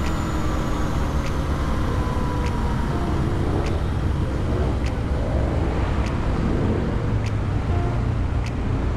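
An Aprilia RS 125 motorcycle being ridden: a steady rush of riding noise over the engine. Faint ticks repeat about every second.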